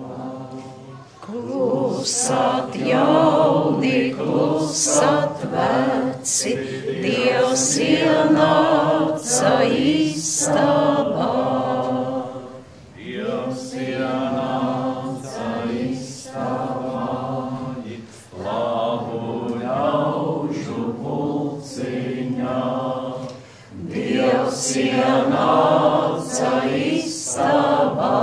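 A group of voices singing a Latvian folk song together, unaccompanied, in phrases of a few seconds with short breaks for breath between them.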